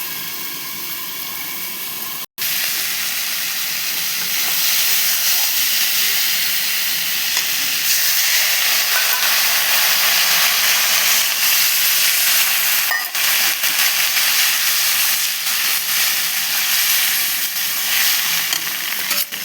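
Potato and bori curry sizzling in a hot pan, a steady hiss that cuts out for an instant a little after two seconds and grows louder from about four seconds in.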